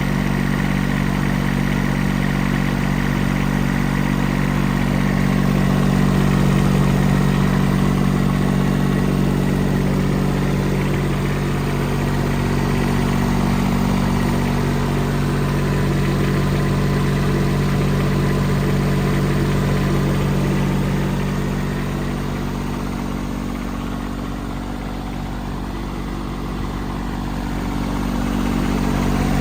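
ELGI D90KA 90 CFM portable diesel air compressor running at a steady idle, with a constant low engine hum. It gets a little quieter for a few seconds late on, then comes back up.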